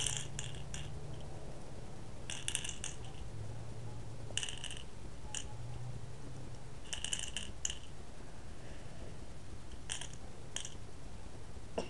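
Plastic airsoft BBs dropped into half of a plastic Easter egg, clicking and rattling in short clusters every one to three seconds, over a faint low hum.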